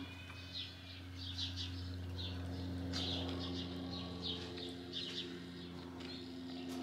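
Small birds chirping, short chirps repeated about twice a second, over a steady low hum.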